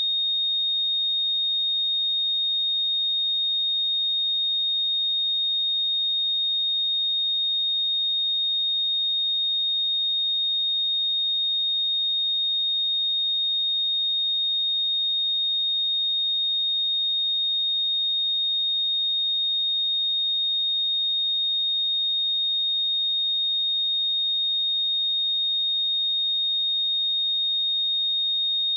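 A pure 3704 Hz sine-wave test tone, one steady high-pitched note held without change.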